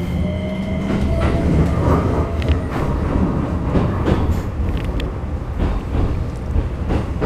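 Keikyu New 1000 series train under way, heard from inside the passenger car. Its Toyo IGBT-VVVF inverter gives a rising tone in the first second as the train accelerates, then there is a steady low rumble of the wheels with repeated clattering knocks from the rails.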